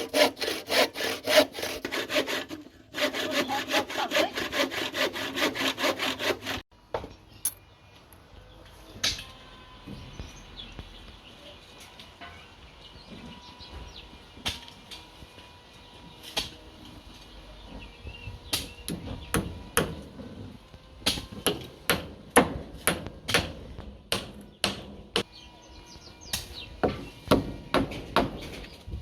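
Hand saw cutting wood with quick, even strokes, pausing briefly near three seconds and stopping about seven seconds in. After a quieter stretch with scattered clicks, a run of separate sharp knocks on wood takes over for the last ten seconds.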